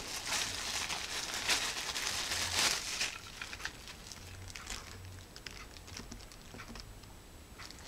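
Thin plastic bag crinkling and rustling as a wall charger is pulled out of it. After about three seconds it dies down to faint clicks of the adapter and its cord being handled.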